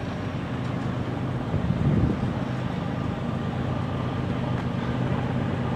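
GE ES44C4 (GEVO) diesel locomotive working hard in notch 8 while moving slowly, heard as a steady low engine drone from the approaching train, briefly louder about two seconds in.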